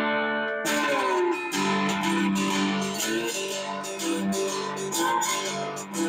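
Three-string ammo can guitar (a cigar-box-style guitar built on a steel ammo can) played with a slide: picked and strummed notes ring out, with a sliding glide in pitch about a second in.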